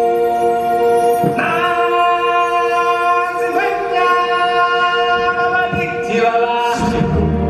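Stage-show music with a choir singing long held chords that change about every two seconds; a deep low bass comes in near the end.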